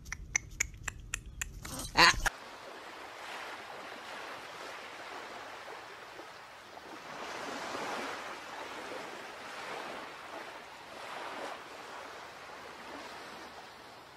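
Surf washing on a beach, a steady rush that swells and eases every few seconds. Before it, for about two seconds, comes a run of quick sharp clicks ending in one louder click.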